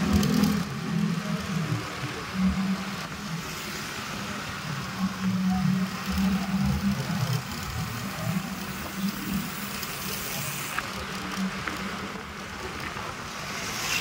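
A motor vehicle running along the road: a steady, wavering engine hum under continuous road and wind noise.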